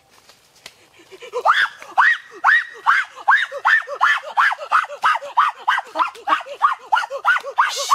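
Frogs calling: a fast, regular series of short croaks, each rising and falling in pitch, about three a second, starting about a second in.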